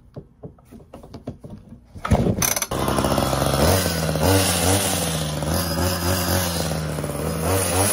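Ryobi HT 26 hedge trimmer's two-stroke engine pull-started with the recoil cord: one pull about two seconds in, then it catches and keeps running, its speed wavering a little. It is the engine's first start on its newly fitted carburettor.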